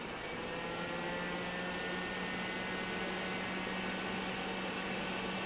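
HP 3561A dynamic signal analyzer just switched on, giving a steady electrical hum and whir. Its tones rise slightly in pitch over the first couple of seconds, then hold.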